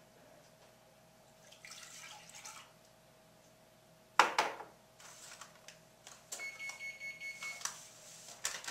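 A single sharp knock about four seconds in, then milk being poured from a carton into a mixing bowl as a quick run of small splashes through the last couple of seconds.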